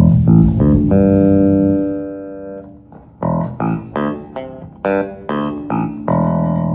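Wolf S7-7 seven-string electric bass played clean through an amp with flat EQ: a held note rings out and fades, then a quick run of short plucked notes, then another sustained note near the end.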